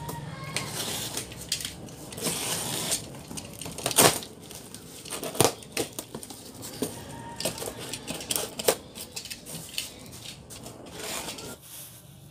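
Cardboard box being opened: a utility knife slitting packing tape, then tape and cardboard flaps scraping and tearing, with irregular clicks and a few sharp knocks, the loudest about four seconds in.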